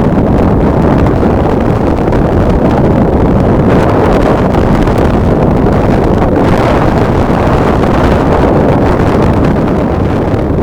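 Strong wind buffeting the microphone: a loud, continuous low rumble with no break.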